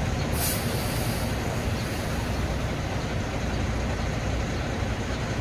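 City street traffic: a steady rumble of passing vehicles, with a short hiss about half a second in.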